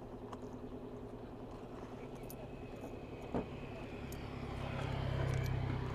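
A motor vehicle's engine running, its low hum growing louder about four seconds in, with a single sharp click a little before.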